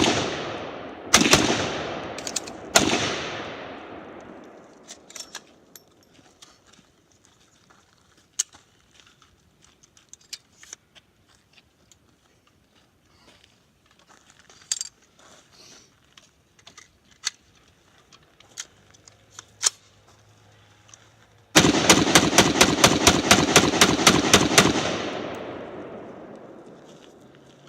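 Gunfire: three single shots about a second apart, each echoing away, then a rapid string of about fifteen shots in three seconds, about five a second, which echoes away after it stops.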